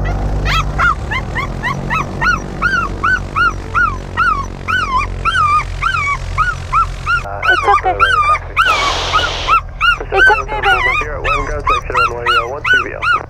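A young dog crying and yelping in distress, over and over, each cry rising and falling, about two a second, over the steady low drone of the light plane's engine inside the cabin. The dog is panicking at the engine noise during the pre-takeoff run-up.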